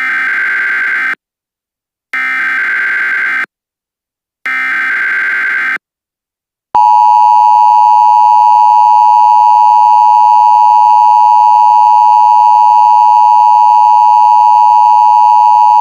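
Emergency Alert System alert signal: three short screeching SAME header data bursts about a second apart, then, about seven seconds in, the long steady attention tone.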